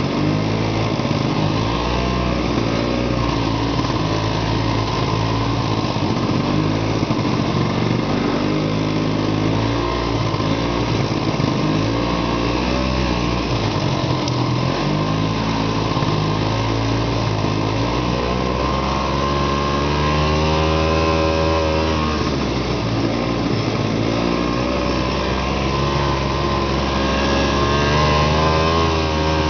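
Arctic Cat Panther snowmobile engine running under way, heard from the rider's seat, its pitch rising and falling as the throttle is worked. It revs up and eases back about two-thirds of the way through and climbs again near the end.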